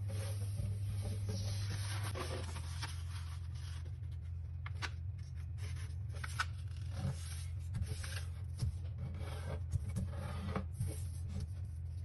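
Sheet of paper being handled and folded on a wooden tabletop: paper sliding and rubbing, with short crackles and sharp crease presses, more of them in the second half. A steady low hum runs underneath.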